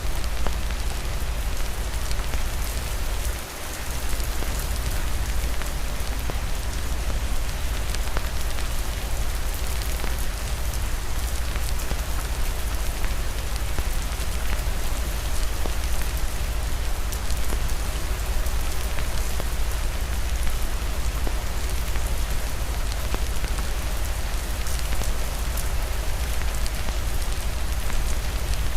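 Steady rain falling on a hard surface: a dense, even hiss scattered with the small ticks of individual drops, with a brief dip in loudness about three seconds in.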